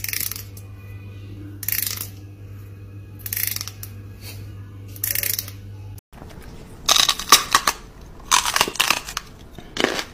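A fine-toothed comb's teeth strummed with a fingertip: four short rasps about a second and a half apart over a steady low hum. After a break, a quicker series of sharp crunching sounds.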